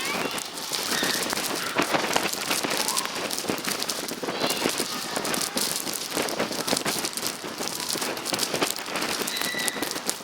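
Wind-driven blizzard snow pelting the camera and its microphone, a dense crackling hiss of countless tiny impacts with gusts swelling and easing.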